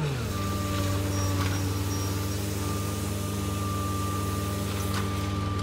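Engine of a tracked skid steer running a soil-injection rig, a steady drone that drops in pitch in the first moment and then holds, with a hiss of water spraying up out of the ground around the injection pipes.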